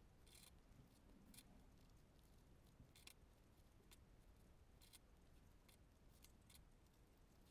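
Near silence, with a handful of faint, short clicks and rustles spread through it as fabric and bias tape are handled.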